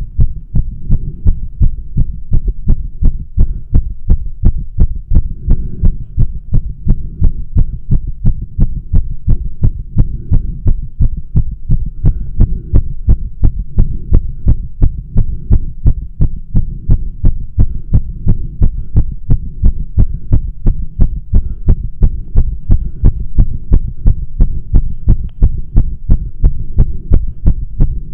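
A man's heartbeat heard through a stethoscope fitted with a microphone, pressed to his chest: fast, regular, strong beats with a steady low rumble beneath, during a spell of tachycardia.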